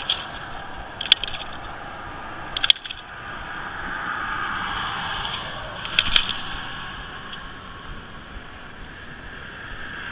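Handling of a retractable tape measure being stretched along a flounder on concrete: four short, sharp clicks and clatters a second or more apart, over a steady hiss.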